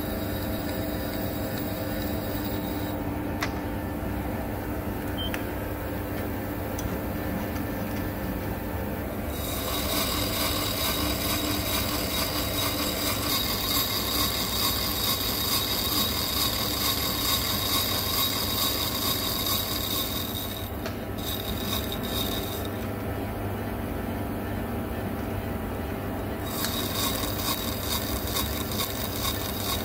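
Metal lathe turning the scratched steel piston of a hydraulic cylinder with a carbide insert tool. The machine hums steadily throughout. A high-pitched squeal from the cut comes in about a third of the way through, drops out about two-thirds in, and returns near the end.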